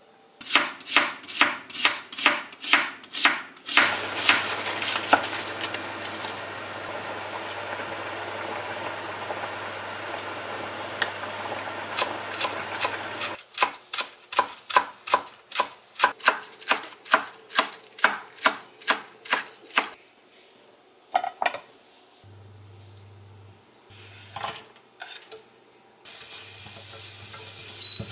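Kitchen knife chopping on a cutting board in quick, even strokes, about three a second, in two runs. Between the runs there is a steady hiss, and near the end a few scattered knocks and the hiss again.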